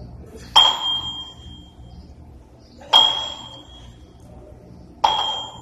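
A pair of plate-loaded dumbbells knocking together overhead at the top of each press: three sharp strikes about two seconds apart, each ringing out for about a second.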